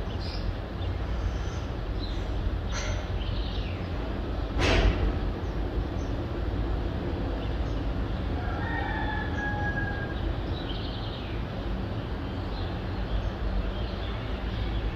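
Steady low rumble of the city, with a few sharp clicks, the loudest about five seconds in, and a short whistled bird call around nine seconds in.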